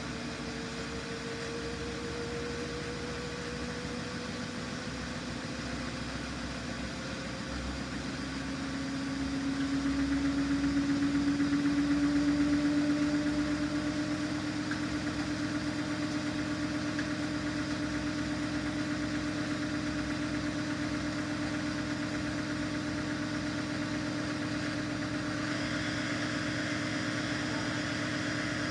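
Samsung front-loading washing machine's motor running with a steady whine whose pitch rises slowly as the drum speeds up. It grows louder for a few seconds about a third of the way in, then settles.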